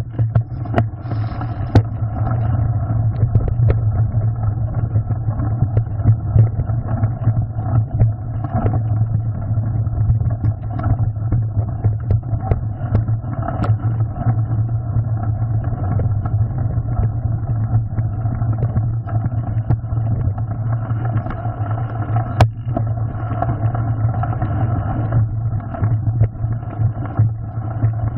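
Mountain bike riding over a gravel trail, heard through a handlebar-mounted camera: a steady low rumble from the tyres and wind, broken by frequent small knocks and rattles as the bike runs over stones.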